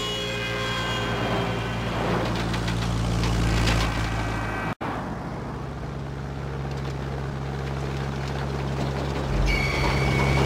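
A light single-engine plane and cars running on a freeway, a steady engine drone. The sound drops out for an instant about halfway through, and a steady high whine joins near the end.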